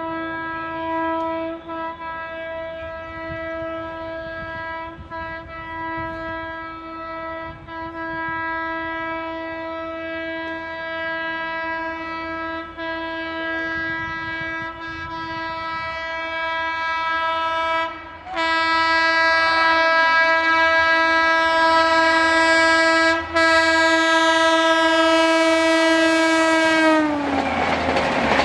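WAP7 electric locomotive's horn honking almost without a break as the train approaches at speed. It cuts out briefly twice and gets louder, then drops sharply in pitch as the locomotive passes. The rush and clatter of the LHB coaches going by follows.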